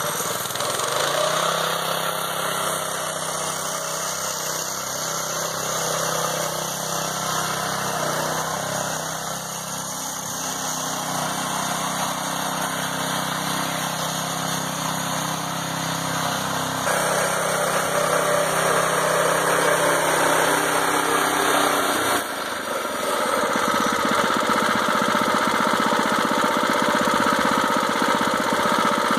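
Predator 212 single-cylinder gas engine running steadily in a repowered Farmall H tractor as it drives slowly. The engine gets louder a little past halfway, and the sound changes abruptly shortly after to the engine heard up close, still running.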